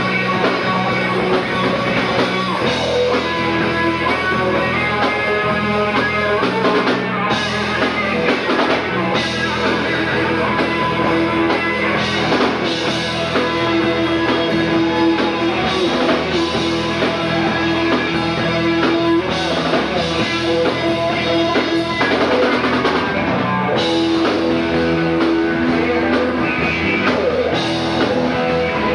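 A live rock band playing: a Stratocaster-style electric guitar plays lead lines with held, bending notes over a drum kit.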